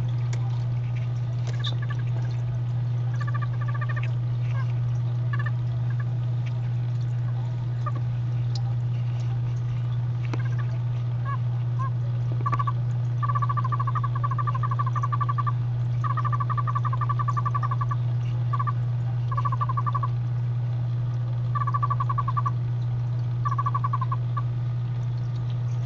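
Oriental fire-bellied toad calling: short runs of rapid, evenly repeated notes, a few faint ones at first and several clearer runs in the second half, over a steady low hum.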